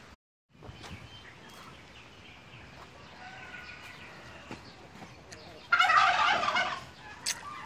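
A turkey gobbling once, a loud call lasting about a second, near the end, with quieter bird calls before it.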